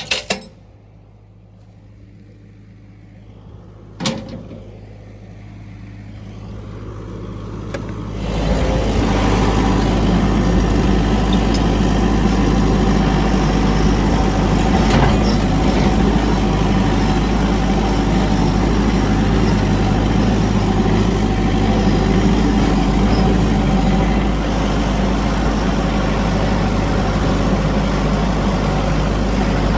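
A vehicle engine: quiet at first, with a single knock about four seconds in, then the engine sound builds up and runs loud and steady from about eight seconds on.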